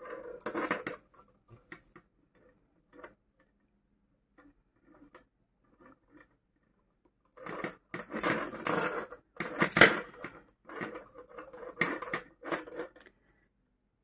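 Metal kiss-lock purse frame clinking and rattling as it is handled while yarn is stitched through its holes: a few light clicks, then a run of louder clattering from about seven and a half seconds in until near the end.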